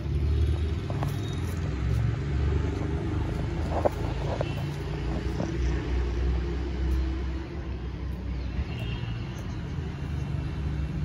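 Wind buffeting the phone's microphone: a low, uneven rumble that swells and eases, with a few faint clicks.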